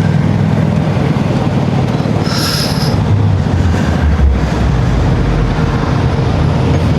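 Steady, loud low rumble of a running vehicle, with a brief high squeal about two and a half seconds in.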